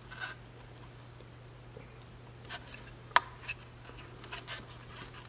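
Faint, light clicks and scrapes of a small black plastic cover being pressed into place over a reed switch by gloved fingers, with one sharper click about three seconds in.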